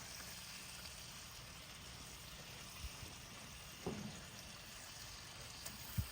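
Faint, steady hiss, with a short voice-like sound about four seconds in and a sharp click near the end.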